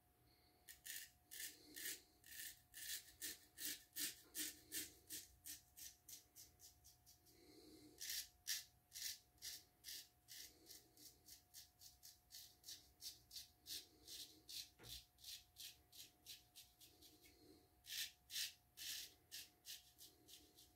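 Straight razor scraping through lathered stubble against the grain, with the skin stretched: faint, short scraping strokes, about three a second, louder for a run about eight seconds in and again near the end.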